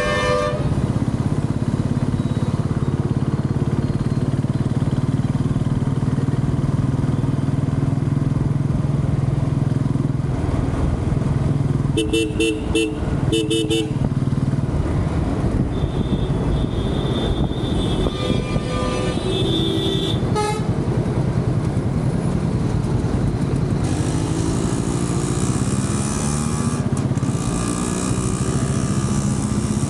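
Royal Enfield Classic 350's single-cylinder engine running steadily under way, heard from the rider's seat. About halfway through, a horn sounds four quick short beeps. Near the end a rushing hiss rises over the engine.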